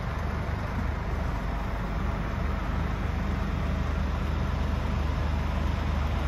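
Scania R450's 13-litre six-cylinder diesel engine idling steadily, a low drone heard from inside the cab.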